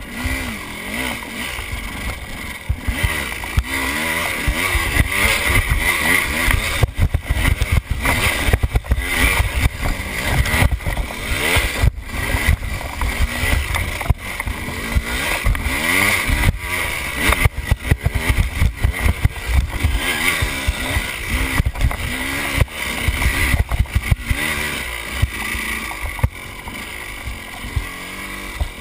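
KTM enduro dirt bike engine running and revving up and down as the bike is ridden, with occasional sharp knocks from the bike over rough ground.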